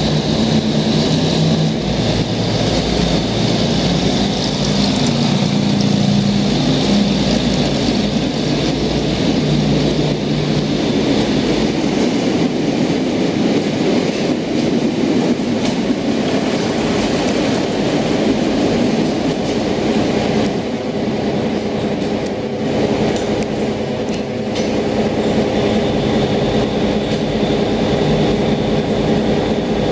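Diesel multiple-unit commuter train running along an underground station platform. An engine drone with a stepping pitch is heard in the first dozen seconds, fading after that, over steady wheel and rail noise that echoes in the enclosed station.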